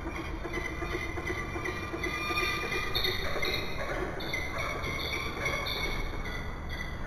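Peregrine falcons calling at a food pass: a run of short, repeated high calls, two or three a second, over a steady low background rumble.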